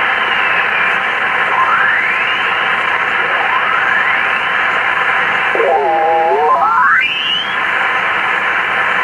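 Icom IC-745 HF transceiver's receiver audio while its VFO knob is turned down through the 20-metre band: a steady hiss of band noise, with the whistles of signals gliding in pitch as they are tuned past. Near the end one signal with several tones dips and then sweeps upward.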